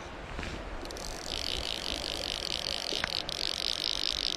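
Fly reel's click-and-pawl drag ratcheting in a fast, even buzz as line is wound onto the spool with a fish on, starting about a second in.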